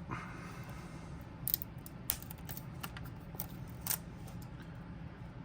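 A few sharp clicks and light scuffs from hands handling a cardboard playing-card tuck box while trying to open it, over a steady low hum.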